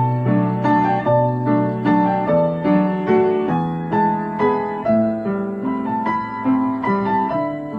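Piano music: an even run of single notes and chords, about two a second.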